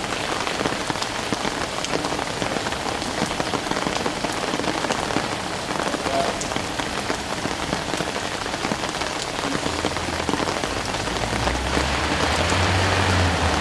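Steady rain falling, a dense even hiss sprinkled with small drop clicks. A low rumble comes in about ten seconds in.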